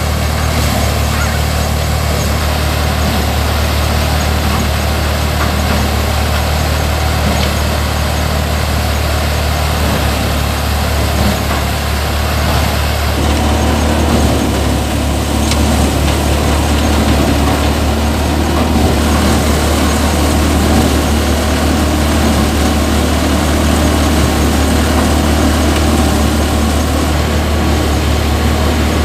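Massey Ferguson tractor engine running steadily, powering a Dashmesh paddy thresher whose drum whirs and rattles as it threshes rice. About halfway through, a coarser rattle joins in.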